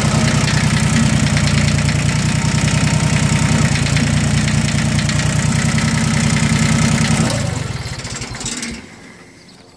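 Yanmar YM1602 tractor's three-cylinder diesel engine running steadily, then shut off about seven seconds in, slowing and dying away over a second or so.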